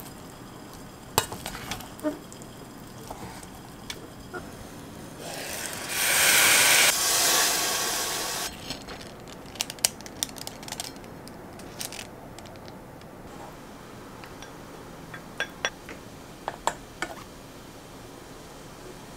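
Kitchen utensil sounds: a rice paddle clinking and scraping in an enamel pot of mixed rice, a loud hiss of about three seconds near the middle, then scattered clinks of a serving spoon against the pot and a bowl.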